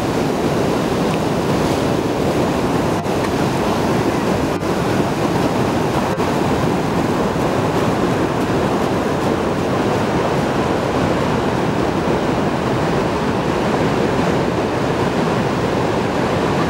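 Steady rushing of a waterfall's falling water, an even wash of noise with no breaks.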